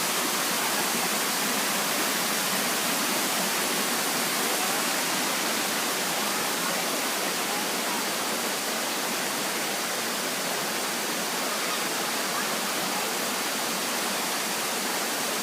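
Steady, even rush of a waterfall, unbroken throughout.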